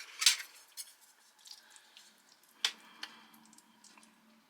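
A few short, wet clicks and taps from a spoon and a mouthful of food being eaten, the sharpest one just after the start.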